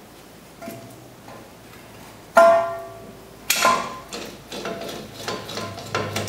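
Metal clanks and clinks of brake parts and hand tools being handled, a C-clamp just taken off the caliper. Each knock rings briefly. The loudest comes about two and a half seconds in, with lighter clicks toward the end.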